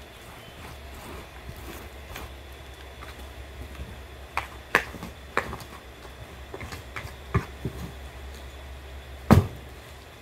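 A handful of scattered light knocks and clicks over a low steady hum, the loudest knock near the end.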